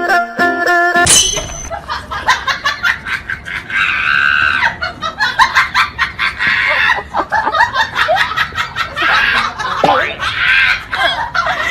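Plucked-string background music stops about a second in. Then people laugh and shriek over a clatter of quick knocks and bumps.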